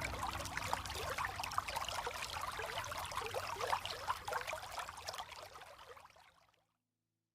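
Falling water splashing and pattering, as of a waterfall in heavy rain. It fades out to total silence about six and a half seconds in.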